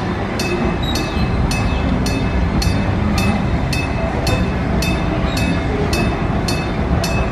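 Electric bell of a level-crossing signal ringing with evenly spaced strikes, about two a second, over the low rumble of a train rolling across the crossing.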